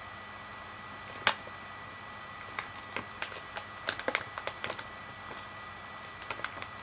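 Scattered light clicks and taps over a faint steady hum: one sharper click about a second in, a cluster of small ticks in the middle, and a few more near the end.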